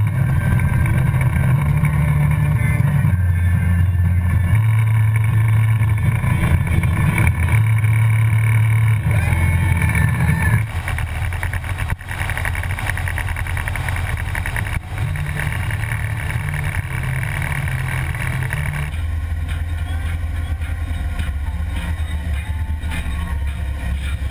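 Harley-Davidson Road Glide Custom's V-twin engine running under way with wind rush on the handlebar-mounted microphone. The engine note steps up and down several times in the first ten seconds, then after an abrupt break about ten seconds in it runs steadier at cruising speed.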